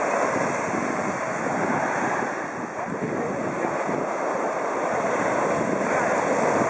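Sea water rushing and washing with wind buffeting the microphone, recorded from a GP14 sailing dinghy at sea.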